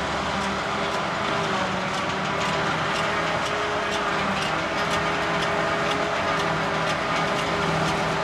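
Claas Jaguar forage harvester chopping grass silage, its engine and chopping cylinder running steadily under load, with a tractor running alongside.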